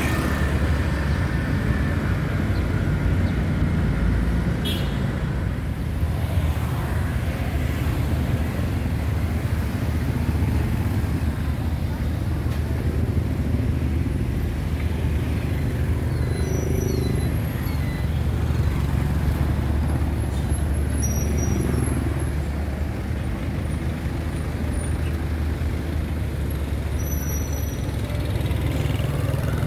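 Street traffic of motorbikes and cars, heard from among it: a steady low rumble with faint short high tones now and then in the second half.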